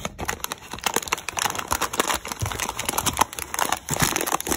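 Packing material rustling and crinkling as an item is pulled out of a cardboard box, with many small, irregular crackles and clicks.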